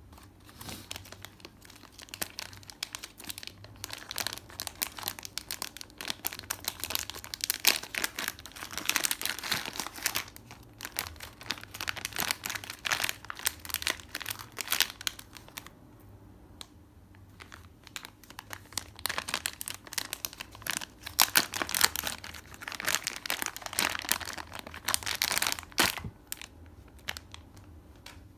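Packaging being unwrapped by hand: crinkling and tearing in two long spells of irregular crackles, with a pause of a few seconds in the middle.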